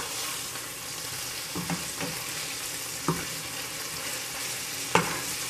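Pieces of chicken sizzling in canola oil in a frying pan, a steady hiss, with a few short knocks as it is stirred.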